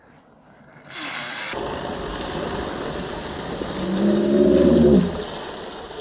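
Fat-bike knobby tyres rolling fast over a dirt track: a steady rushing hum with a rising pitch. It is loudest as the bike passes close, then stops abruptly about five seconds in. A short rush of noise comes about a second in.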